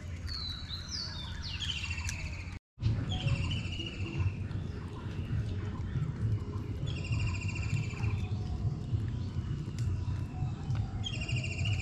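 Birds calling. A chattering call of rapid pulsed notes, about a second long, repeats five or so times over a steady low rumble. The sound cuts out for an instant a couple of seconds in.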